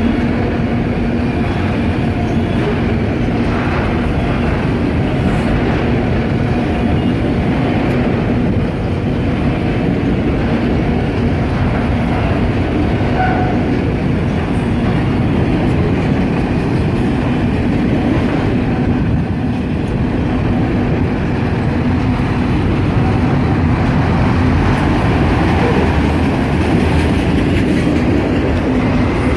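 Freight train cars rolling past at steady speed: a continuous rumble and clatter of steel wheels on the rails, with a steady hum running through it.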